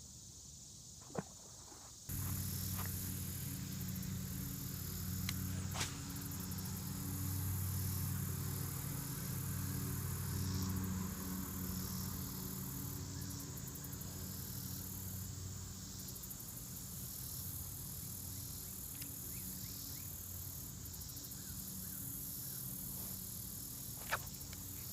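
Insects calling steadily over a low, steady hum, with a few sharp clicks. The sound gets louder suddenly about two seconds in.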